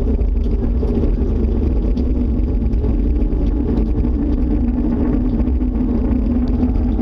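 Loud, steady low rumble with a droning hum in it, unbroken and unchanging, of unknown origin. The recorder fears it may be a tornado, though nobody can say what it is.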